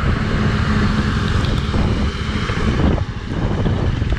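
Jawa 42 motorcycle's single-cylinder engine running as it is ridden, buried under heavy wind noise on the microphone and driving rain.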